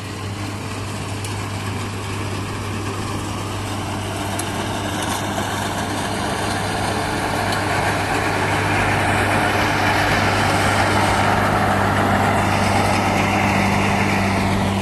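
Rice combine harvester's engine running steadily with a low hum and the rush of its machinery, growing louder over the first half as it comes closer.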